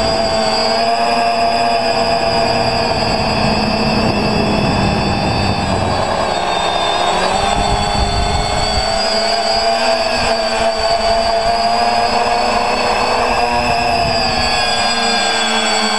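X580 quadcopter's electric motors and propellers whining in flight, heard from its onboard camera, the pitch drifting up and down with throttle. Rushing wind noise runs underneath and eases about nine seconds in.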